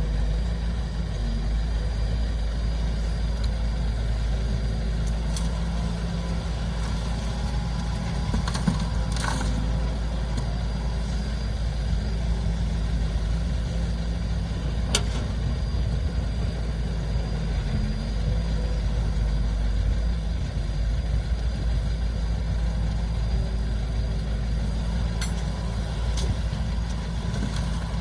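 Heavy construction machinery's diesel engine running steadily with a low rumble, with a few faint clicks.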